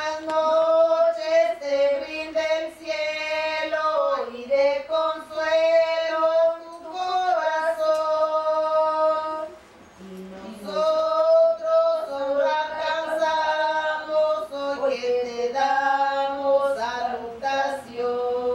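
Women's voices singing a song without accompaniment, holding long notes, with a short break about ten seconds in.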